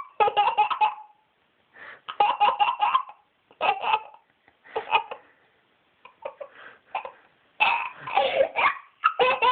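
A small boy laughing in repeated short bursts with brief pauses between them.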